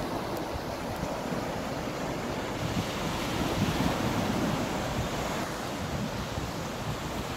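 Sea surf washing onto a sandy beach, a steady hiss of breaking waves, with wind rumbling on the microphone.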